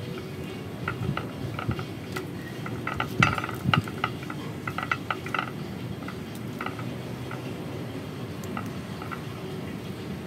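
Light, sharp clinks and taps of hard objects against a glazed ceramic bonsai pot as gloved hands work around the tree. They come in a quick cluster during the first half and thin out to a few scattered clicks later, over a steady low hum.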